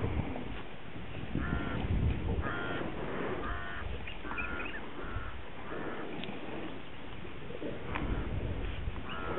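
African wild dogs twittering while they feed at a carcass: short, squeaky, bird-like calls, about two a second in spurts, over low scuffling as they tug at the kill.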